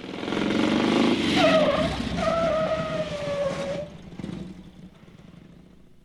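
A car's tyres squealing in a skid over the engine and road noise. The squeal wavers for a little over two seconds and cuts off abruptly, and the rest of the sound then fades away.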